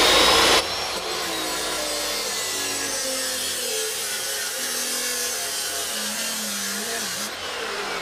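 Angle grinder with a cutoff wheel cutting through a steel exhaust pipe. About half a second in, the sound drops to a steady harsher note as the wheel bites, and the motor's pitch wavers and sinks under the load.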